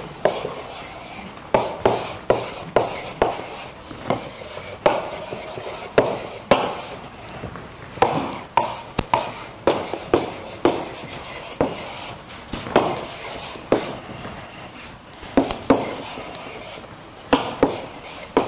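Chalk writing on a blackboard: irregular sharp taps and short scratchy strokes as the words are written, with brief pauses between them.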